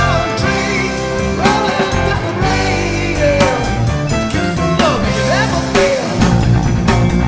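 Heavy metal band playing, with drums and a lead line that slides up and down in pitch, at a steady loud level.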